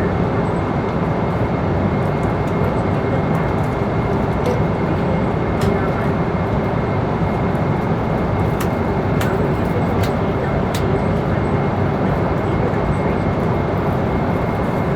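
Airliner cabin noise in flight: a steady, even roar of engine and airflow through the fuselage, with a faint steady high tone running through it and a few tiny ticks.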